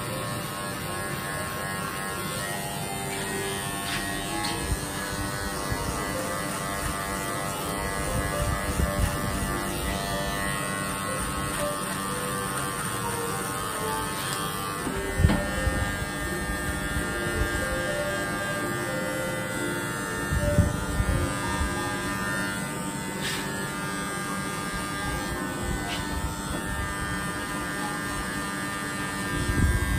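Cordless electric hair clipper running with a steady buzz as it trims the short hair around the ear and nape, with a few brief knocks along the way.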